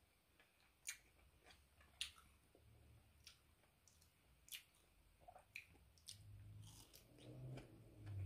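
A person eating mango slices up close: bites and wet crunches about once a second, each short and sharp, with a low murmur coming in near the end.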